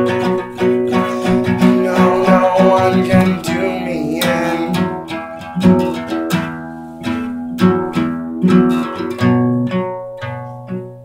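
Steel-string acoustic guitar being played with the hand over the soundhole. There is busy, steady strumming for the first few seconds, then separate chords are struck and left to ring, fading toward the end.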